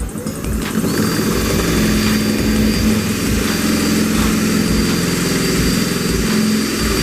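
Electric drill running steadily under load as it bores a 3/8-inch hole through the spoiler for a wicker bill mount, then stopping sharply near the end.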